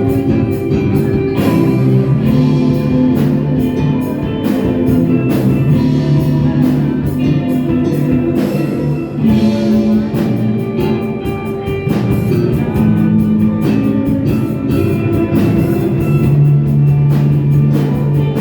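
Live rock band playing: guitar over held low notes, with drums keeping a steady beat throughout.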